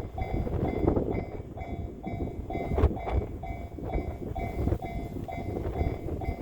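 Japanese railway level-crossing warning bell ringing in a steady two-tone pulse, about twice a second, over a low rumble from wind on the microphone and the passing train.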